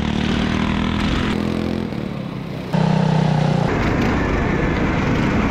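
Small single-cylinder go-kart engines running at a steady speed. About three seconds in, the sound jumps abruptly to a louder, rougher engine note as the karts drive on.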